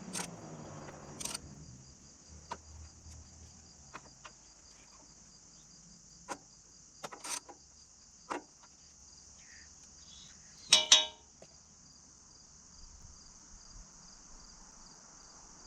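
Crickets chirping steadily in the background, with scattered sharp clicks of hand tools on metal. About eleven seconds in comes a brief, loud metallic clatter with a ringing tone.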